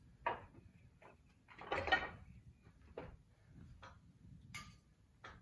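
A few scattered short clinks and knocks of climbing gear being handled, with the loudest, a brief rattle, about two seconds in.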